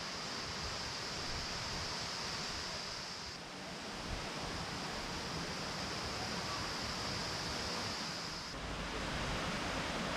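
Steady outdoor ambient noise, an even hiss with a high thin drone over it, shifting slightly twice.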